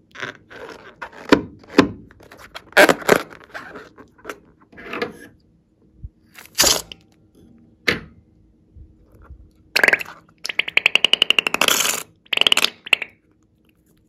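A rubber balloon filled with liquid slime colouring is handled and squeezed, with short rubbing and squeaking noises. Near the end there is a fast, buzzing, squealing sputter as the liquid and air are forced out through the balloon's neck.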